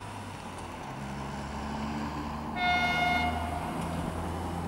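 A short, high-pitched horn blast of just under a second about halfway through, over a steady low drone of diesel engines: the 2M62U diesel locomotive sounding its horn as it pulls a freight train out of the station.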